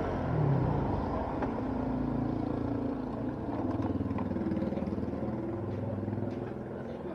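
Motorcycle engine running at low revs, its pitch rising and falling a little.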